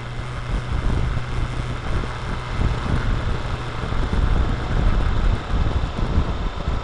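Suzuki Bandit 650 on the move, heard through a cheap camera clamped to the front fork: a dense, loud low rumble of engine, tyre and wind, with a steady low hum that fades out about two seconds in. The odd, rough tone is put down by the rider to vibration or the camera's mounting.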